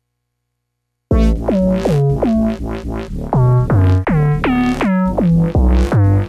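Electronic music from a Blipblox myTRACKS playing its Synthpack sounds, starting suddenly about a second in: synth notes that each swoop quickly down in pitch as they start, over a heavy, rhythmic bass beat.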